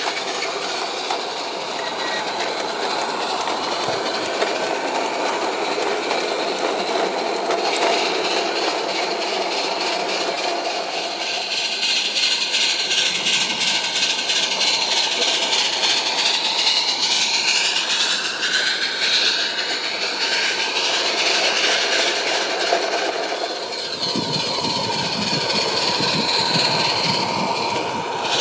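Small live-steam 0-4-0 garden-railway locomotive running with a train of model goods wagons: steady steam hiss and exhaust mixed with the rolling of the small wagon wheels on the track, with a fast run of small regular clicks through the middle.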